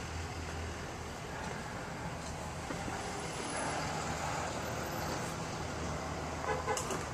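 Truck engine idling, a steady low hum.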